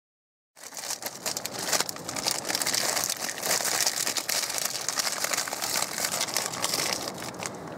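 Plastic food packaging being crinkled and crumpled by hand, a dense run of crackles starting suddenly about half a second in.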